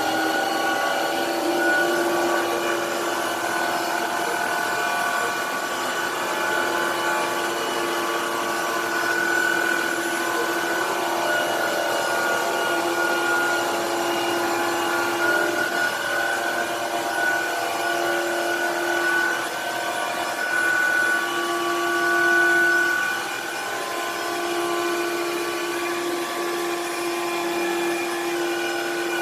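Tineco iFloor 2 cordless wet/dry floor washer running at a steady speed, its motor a constant whine with several fixed tones.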